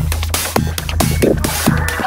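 Background music: electronic dance track with a steady bass and a regular drum beat.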